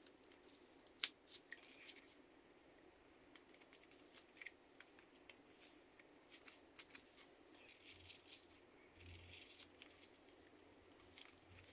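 Faint, irregular snicks and short scrapes of a carving knife shaving thin chips from the edges of a small wooden Christmas-tree cutout, chamfering its corners.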